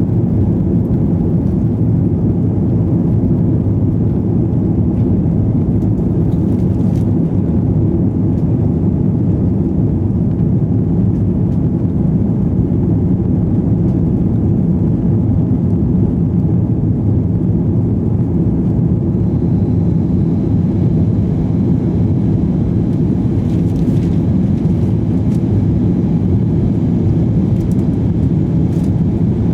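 Airbus A320 engine and airflow noise heard inside the passenger cabin after takeoff: a loud, steady, low rumble.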